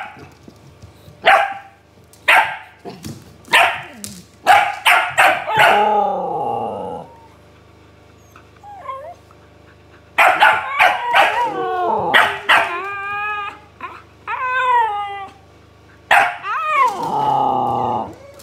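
A dog barking in short sharp barks, answered by a Siberian husky's drawn-out, wavering howl-like 'talking' calls that slide up and down in pitch. Near the end a last bark is followed by a long falling husky 'nooo'.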